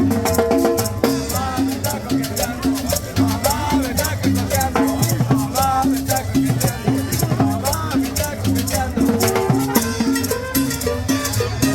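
Upbeat tropical Latin dance music with a steady beat of drums, bass and shakers, and a melody line over it.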